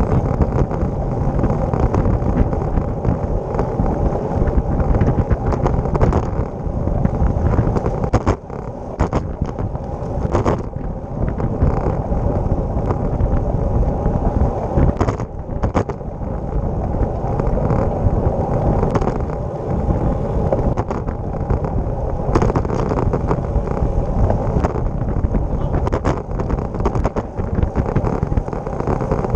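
Wind rushing over a bike-mounted camera's microphone while riding a road bike, with steady tyre rumble on asphalt. Scattered sharp clicks and rattles come from the bike going over road bumps.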